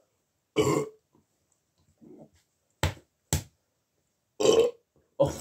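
A young man burping after gulping down fizzy cola: a burst of burping just over half a second in and another near the end, with two sharp clicks a moment apart in between.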